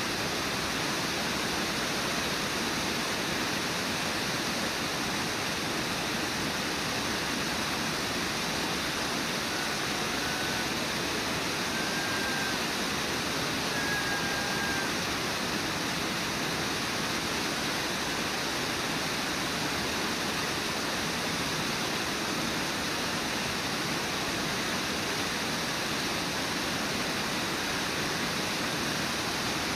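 Steady rushing of a waterfall pouring over a rock ledge, even and unbroken. A few faint short high whistles come through about a third of the way in.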